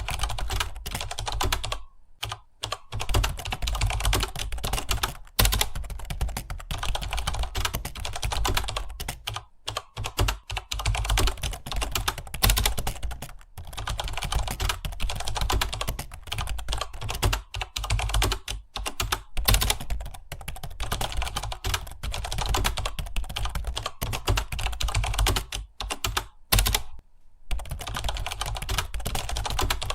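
Fast, continuous typing on a computer keyboard, with keystrokes following each other rapidly and only a few short pauses.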